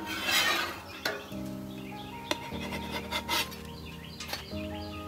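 A metal spatula scraping under French toast sticks on a flat top griddle, loudest in the first second, followed by a few sharp taps as it knocks against the steel. Background music plays throughout.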